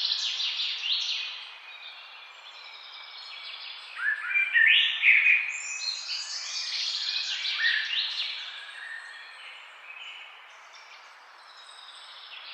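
Small birds singing: bursts of quick chirps and whistles, a loud cluster at the start and a longer one from about four seconds in, quieter near the end, over a faint steady background hiss.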